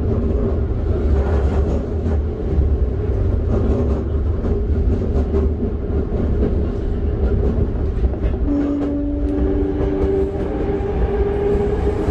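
Toei 5300 series electric train running: a steady rumble of wheels on rail with frequent rail-joint clicks, under the whine of its Mitsubishi GTO-VVVF inverter and traction motors. About two-thirds of the way through, new tones come in and climb slowly in pitch.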